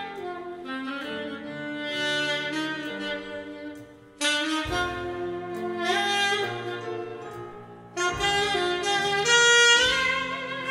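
Big band jazz playing, with a saxophone out in front over sustained chords from the band; the whole band comes in with fresh chords about four and again about eight seconds in.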